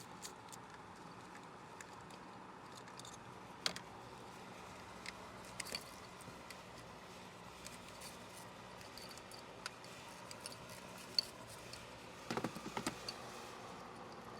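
Scattered light clicks and metallic clinks of hand tools and ignition coils being handled on a car engine, with a short cluster of knocks near the end, over a faint steady hum.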